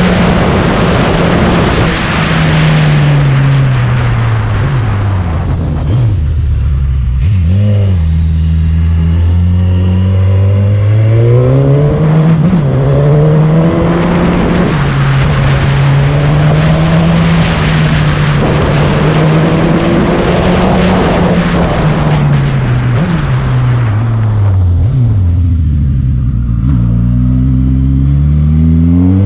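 Motorcycle engine pulling uphill under wind rush. The engine note drops away twice as the bike slows into tight bends, about six seconds in and again near the end, then rises steadily as the throttle opens out of each bend.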